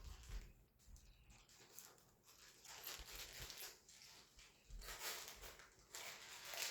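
Faint rustling and handling of packaging, with a few soft knocks.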